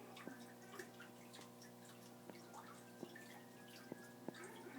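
Faint, sparse sharp clicks and crunches, about five spread irregularly, from an Argentine tegu chewing on a chick, over a steady low electrical hum.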